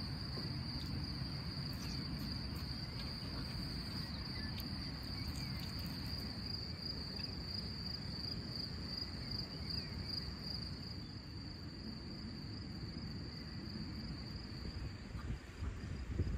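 Insects singing in one continuous high-pitched note over a steady low outdoor rumble, with a few low gusts of wind on the microphone near the end.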